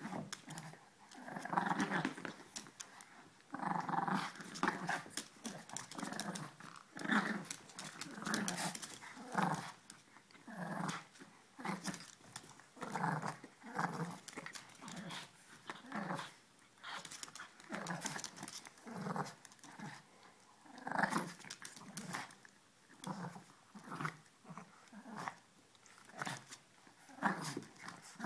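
Two Boston Terriers play-growling at each other as they wrestle, in short growls and grumbles that come every second or so.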